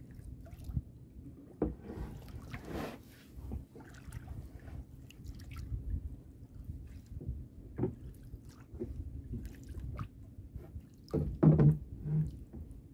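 Water lapping and dripping against a small boat's hull, with scattered small knocks, and a louder burst about eleven seconds in.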